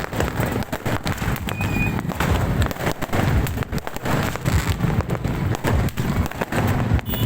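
Fireworks going off in a dense, continuous barrage: many bangs and crackles overlapping several times a second, with deep booms throughout.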